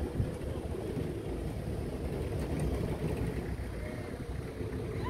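Wind rumbling on a phone's microphone outdoors, an uneven low buffeting with no speech. A few faint short whistled notes come near the end.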